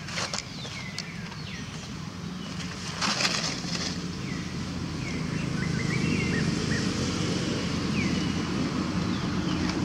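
Outdoor ambience: a low engine rumble swells through the first half and stays up. Short falling bird chirps come and go over it, with two brief rustling noises, one at the start and one about three seconds in.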